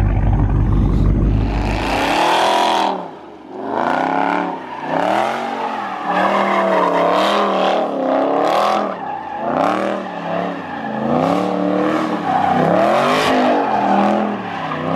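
Dodge Charger doing donuts: after a deep low rumble for the first two seconds, the engine revs rise and fall again and again, about once a second, while the spinning rear tyres squeal.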